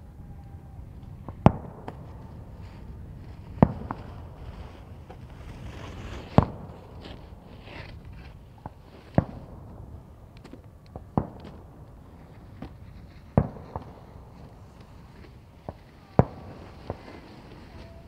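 Fireworks going off: single sharp bangs every two to three seconds, with a few fainter pops between them.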